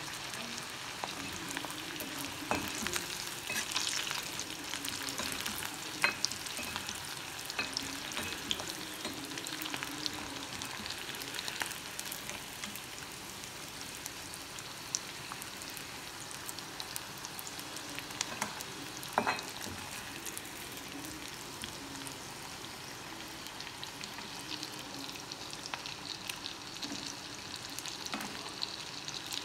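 Pieces of dried fish (karuvadu) deep-frying in oil in a black iron kadai: a steady sizzle full of small crackles and pops. There are a few sharper knocks as a metal ladle stirs and lifts the pieces.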